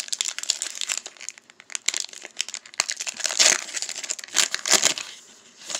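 Foil wrapper of an NBA Hoops Premium Stock trading-card pack crinkling and tearing as it is ripped open by hand, with the loudest rips about three and a half seconds in and again just before five seconds.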